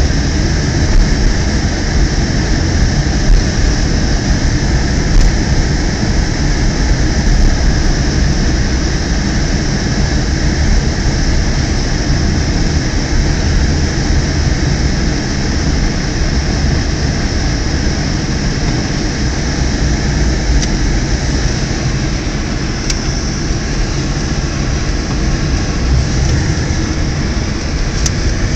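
Steady road and engine noise inside a moving car's cabin, with tyres running on a snow-covered road: a loud, even rumble.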